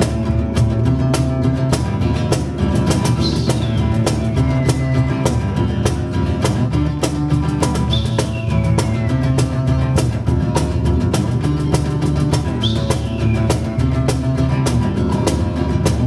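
Live acoustic band music: acoustic guitar and bongos playing a steady rhythm, with a high falling glide sounding about every four to five seconds.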